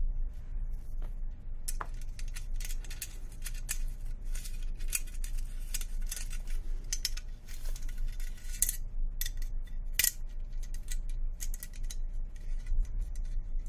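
Irregular light metallic clicks and short scrapes from small rail parts being handled by hand: a screw being started into the backing plate of a 2-inch accessory rail section.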